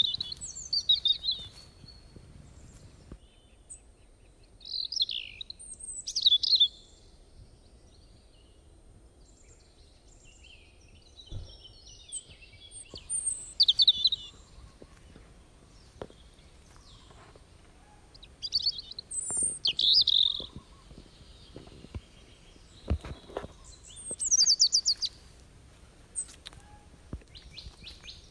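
Birds calling in short bursts of quick, high chirps every few seconds, with a couple of dull thumps.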